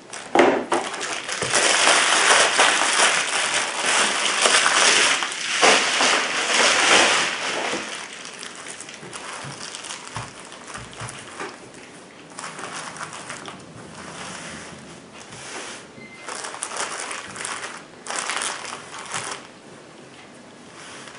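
Bubble wrap being pulled off and crinkled by hand, a dense loud crackling for the first eight seconds or so, followed by softer intermittent rustling of a cloth bag and a thin plastic bag.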